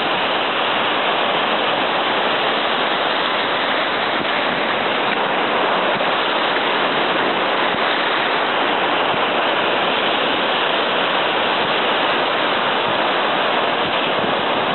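Ocean surf breaking on a beach, a steady rushing wash of waves.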